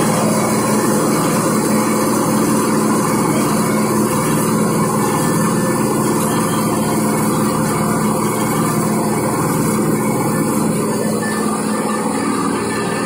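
Double-stage centrifugal millet dehuller running at a steady speed: a constant machine hum under an even rushing noise, with hulled millet pouring from the outlet chute.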